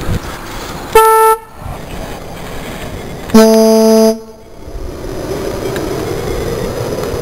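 Car horn taken off a Blazer and mounted on a bicycle, honked twice: a short toot about a second in, then a longer blast about two seconds later with a lower second tone in it.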